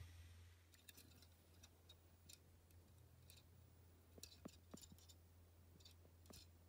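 Near silence: a steady low hum with faint, scattered short ticks, a few clustered about two-thirds of the way through.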